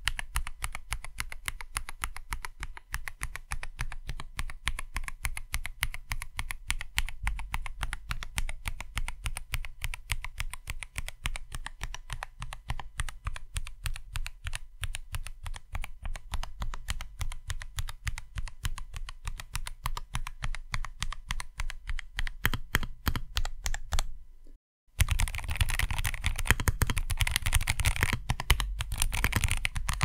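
MelGeek Mojo84 mechanical keyboard with custom Kailh Box switches, a polycarbonate plate and a chambered silicone mute pad, its keys pressed one after another in a quick run of clicky keystrokes. After a short pause near the end, faster and louder two-handed typing follows.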